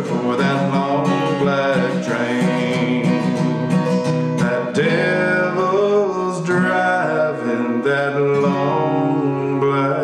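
Acoustic guitar strummed in a steady country rhythm, with a man's voice singing over it in places.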